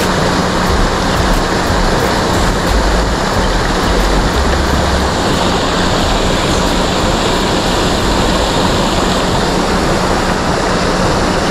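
Steady rushing, splashing water with a faint steady hum underneath.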